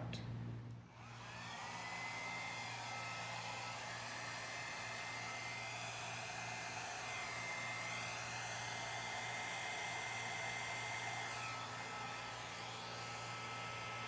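Hair dryer switched on about a second in, its motor whine rising and then holding steady over the rush of its airflow as it blows fluid acrylic paint across a canvas.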